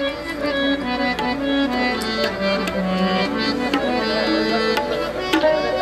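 Live Pashto folk music: tabla drums struck in a steady rhythm over the held, sustained chords of a harmonium.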